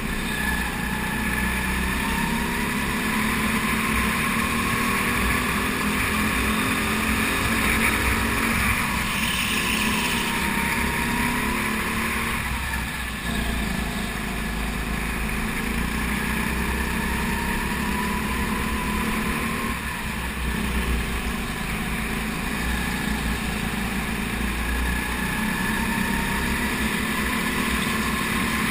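Racing kart engine at race pace, heard onboard, its pitch repeatedly rising along the straights and falling back into the corners.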